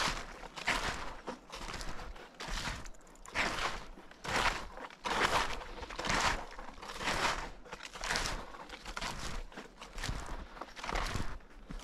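Snowshoes crunching and compressing fresh powder snow at a steady walking pace, about one step a second.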